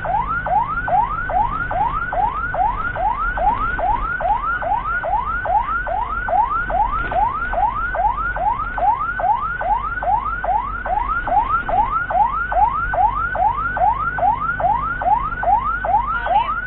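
Ambulance siren on the fast yelp setting: a rapid, steady run of rising wails, about three a second, over a low vehicle rumble. It cuts off right at the end.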